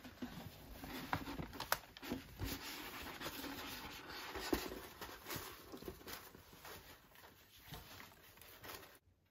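A rolled paper art print and its tissue paper being unrolled and pressed flat by hand: paper rustling and crinkling with a few light taps, fading out just before the end.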